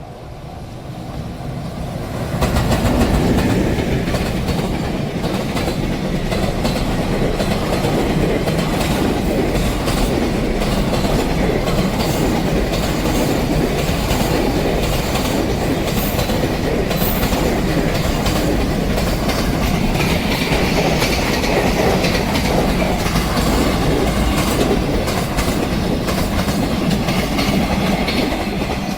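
Long freight train passing a level crossing at close range: steady wheel-on-rail noise with clattering over the rail joints. It builds over the first couple of seconds and stays loud until it falls away just before the end.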